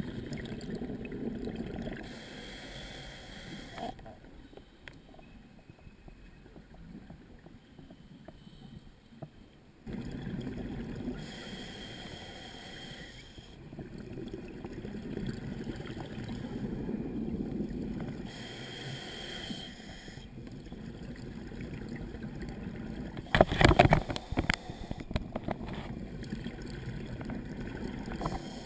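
A scuba diver breathing through a regulator underwater: slow hissing inhalations every six to eight seconds alternating with longer bubbling exhalations. A brief loud burst of noise about three-quarters through.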